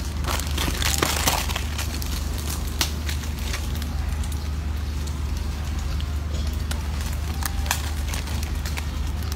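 Plastic snack wrappers crinkling and crackling in irregular bursts as monkeys handle and pull at them, busiest in the first second or so, over a steady low hum.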